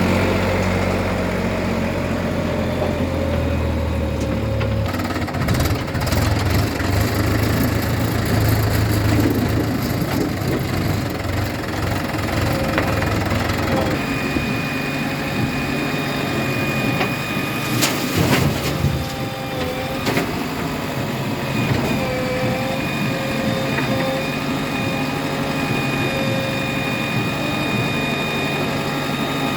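Heavy machinery engines running continuously, their note shifting a few times, with one short sharp noise about eighteen seconds in.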